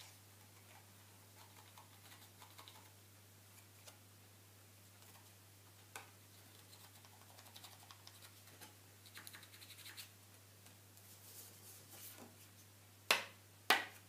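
Faint scraping and light clicks of a playing card being slid into and through a small ebony-and-maple prop, handled over a cloth-covered table. Two sharper knocks come near the end, over a steady low hum.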